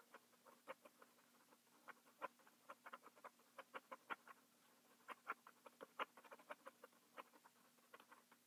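Colored pencil making quick, short fur strokes on paper: a string of small irregular taps and scratches, several a second.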